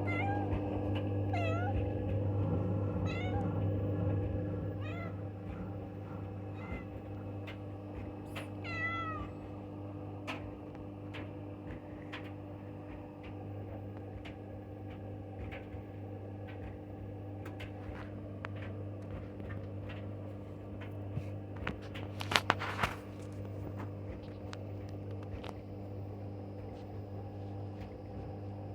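LG front-loading washing machine in its spin cycle on the cotton programme, a steady low hum with a few fixed tones. In the first several seconds a series of short, high calls that bend in pitch repeats about every second and a half, and about three quarters of the way in there is a brief cluster of sharp knocks.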